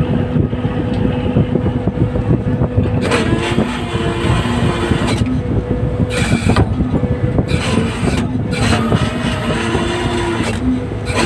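Fishing boat's engine running steadily, with a steady hum and low rumble, and several short bursts of hiss cutting in through the running.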